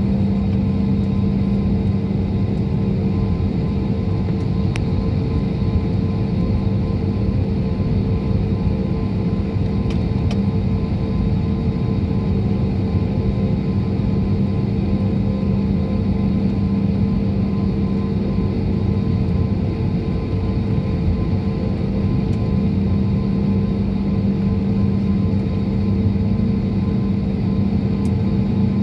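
Steady drone of an airliner's jet engines heard from inside the passenger cabin, a low rumble with a constant hum that does not rise or fall.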